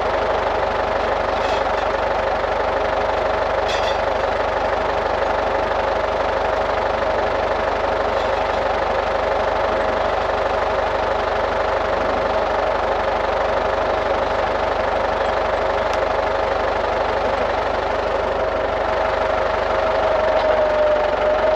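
Tractor engine running steadily with a steady whine over it, which dips slightly in pitch near the end.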